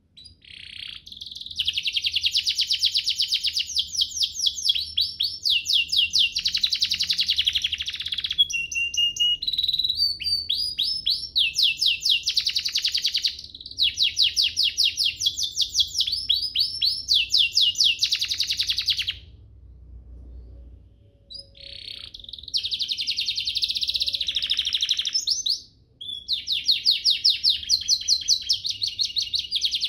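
Domestic canary singing long phrases of very fast rolling trills that change speed from phrase to phrase. There is a pause of about three seconds around two-thirds of the way through and a short break soon after.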